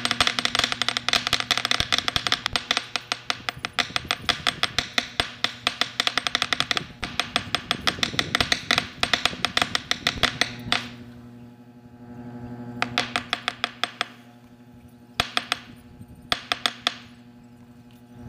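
Kitchen knife chopping squid on a plastic cutting board: quick, even taps of the blade on the board for about ten seconds, then a pause and a few short runs of taps.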